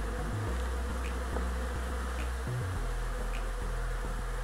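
Honey bees buzzing as a steady hum from a dense crowd of bees close by.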